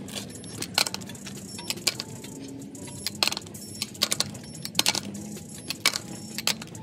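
Metal tools and parts clinking and rattling in irregular sharp clicks, about one or two a second.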